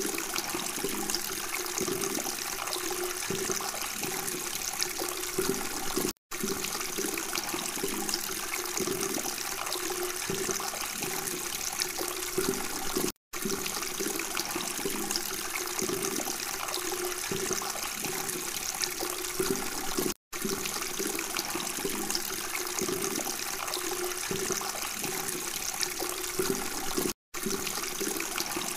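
Water from a small homemade tabletop fountain splashing and trickling steadily into its basin. The sound drops out for a split second about every seven seconds.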